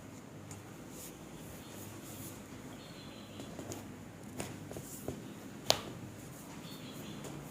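A single sharp crack of a joint being manipulated in a chiropractic adjustment, about three-quarters of the way in, preceded by a few fainter clicks.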